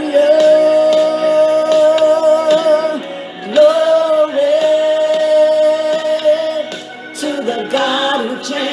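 Gospel song: a singer holds two long, wavering notes over the backing music, then sings a shorter run of moving notes near the end.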